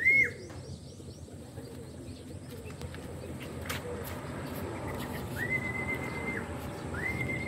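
Human whistling to call racing pigeons in to the loft. One short rising-and-falling whistle at the start, then two longer, level whistles of about a second each near the end.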